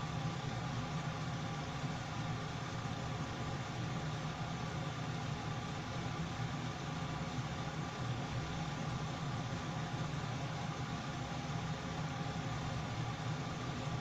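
Kitchen ventilation fan running with a steady hum.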